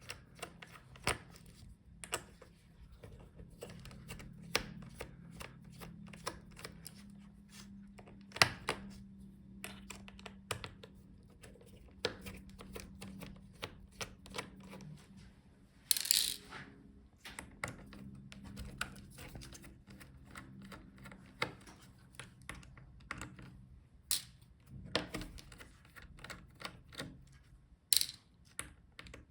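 Small clicks and taps of a screwdriver and screws as the screen hinge screws are taken out of a laptop, with a low steady hum under much of it and a short scraping rustle about halfway through.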